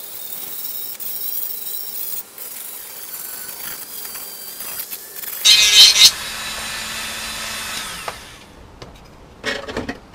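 Dremel rotary tool trimming excess plastic off a Stormtrooper armour ear cap: a steady high whine that gets loudest about halfway through as it bites, then stops about two seconds before the end. A few knocks follow near the end.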